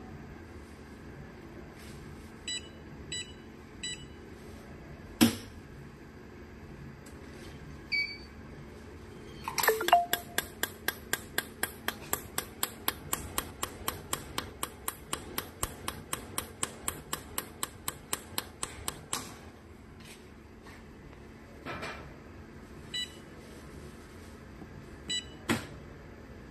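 Mini jewelry laser welder firing pulse after pulse: a long even run of sharp snaps, about four a second, lasting close to ten seconds. A few short electronic beeps and single clicks come before and after it.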